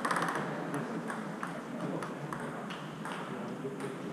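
Table tennis rally: a series of sharp, irregular clicks of the celluloid or plastic ball striking the bats and bouncing on the table.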